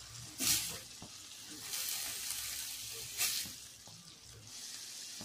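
Diced vegetables sizzling in a stainless steel pan while being stirred with a silicone spatula, growing briefly louder twice, about half a second and three seconds in, as the mix is turned.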